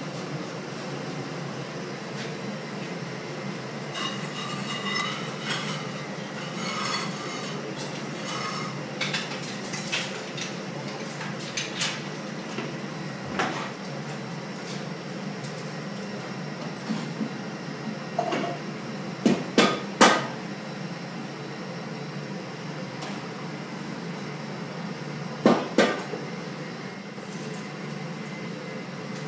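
Metal clanking as steel crucible tongs and the crucible of molten bronze are handled among steel mould flasks: a run of light clinks that ring briefly, then sharp, louder knocks, three about twenty seconds in and two near the end, over a steady low hum.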